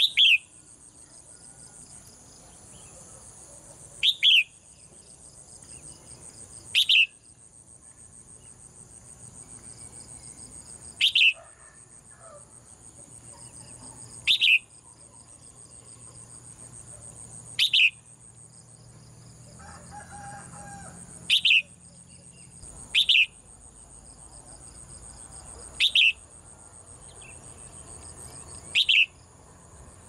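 Caged red-whiskered bulbul giving short, loud two-note calls, about ten of them spaced every few seconds.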